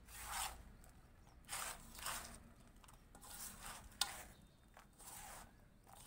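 Hands scraping and raking through gritty potting soil in a shallow basin, a series of about six short scratchy rustles, with a sharp click about four seconds in.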